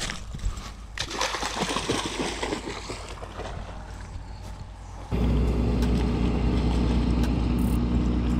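Crinkling and rustling of a plastic bait bag being handled. About five seconds in, the sound changes abruptly to a steady low motor hum, with water splashing as a dog wades in the river.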